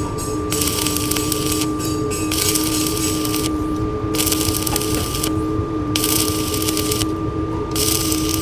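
Stick (MMA) welding with a 2.5 mm electrode at 76 A: the arc crackles and sizzles in stretches of about a second, breaking off for about half a second between them. A steady hum and a thin high whine run underneath.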